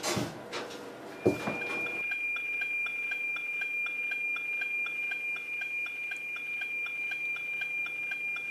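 A clock ticking evenly and rapidly under a steady high-pitched electronic whine, after a single knock about a second in.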